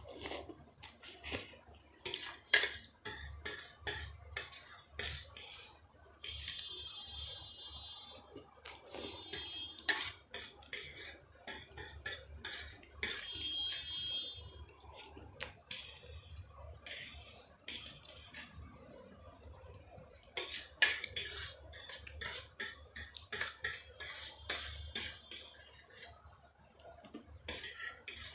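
Cutlery clinking and scraping against a dish while noodles are eaten, in quick irregular bursts with a few brief ringing tones.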